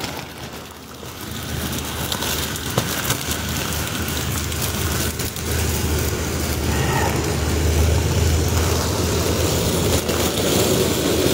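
Heavy downpour: a steady hiss of rain over a low rumble, both growing louder through the second half.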